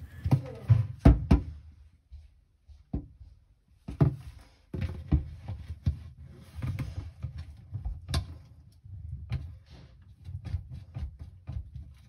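Irregular clicks, light knocks and rubbing of hands working a rubber seal and thin wire around a dishwasher's plastic pump sump, against the stainless steel tub. The louder knocks come about a second in, near four seconds and near eight seconds.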